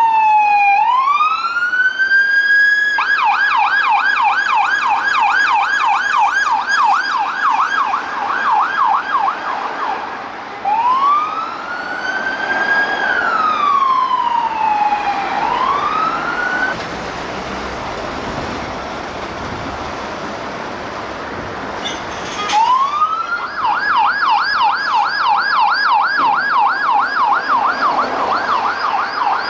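Peugeot 308 police response cars' electronic sirens, switching between a slow wail and a fast yelp of about three to four sweeps a second. About halfway through, the siren stops for a few seconds, leaving street noise and a sharp click. Then another siren starts with a rising wail that turns into the yelp.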